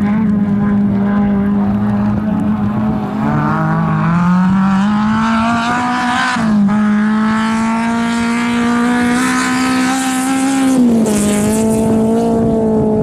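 Rally car engine running hard at high revs, its pitch climbing and then dropping sharply twice, about six and a half and eleven seconds in, as the driver shifts up through the gears.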